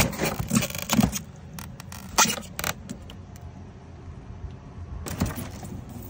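Handling noise from a live king crab being lifted out of a styrofoam cooler of crushed ice: a run of scrapes, clicks and rattles in the first three seconds, the sharpest about two seconds in, and another brief scrape near the end. A steady low rumble sits under it throughout.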